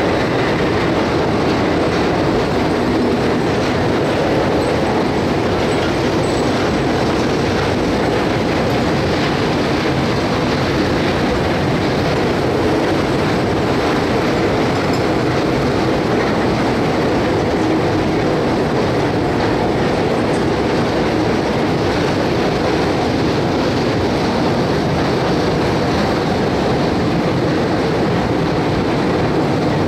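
Long train of empty sugarcane wagons on a narrow-gauge sugar-mill railway rolling past close by, a steady, loud run of wheels on the track.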